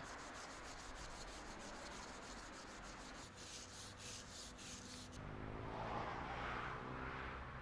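Hand brush scrubbing the face of a weathered stone stele in quick repeated strokes, a faint rough rubbing. After about five seconds it gives way to a faint low drone that swells and then eases.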